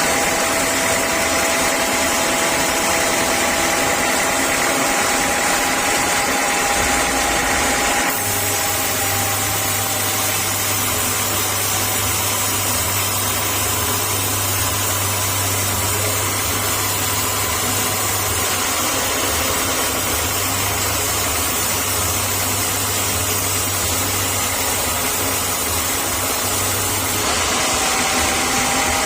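Sawmill saw and its drive running steadily with a constant machine hum and a thin whine. About eight seconds in the whine drops away and a lower, steady hum takes over; near the end the whine returns.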